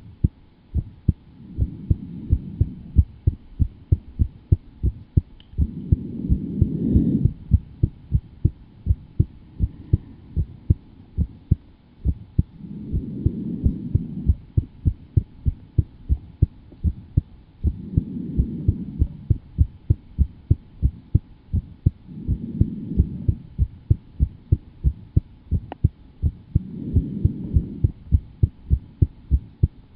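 A fast, steady heartbeat, about two and a half beats a second, with a low whooshing swell rising and fading every four to five seconds.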